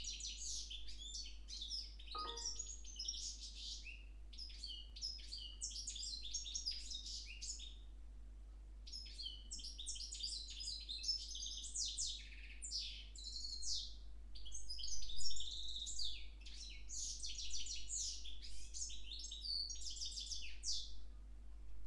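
Goldfinch × timbrado canary hybrid (mule), of the small parva goldfinch, singing a long run of rapid, high-pitched trills and chirps, with a short break about eight seconds in.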